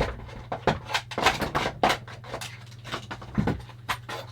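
Rummaging among hard objects while searching for a tool: an irregular run of clatters and knocks as things are moved about and set down, over a steady low hum.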